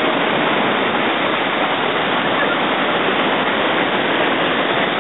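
River rapids: white water rushing over rocks in a loud, steady, unbroken roar.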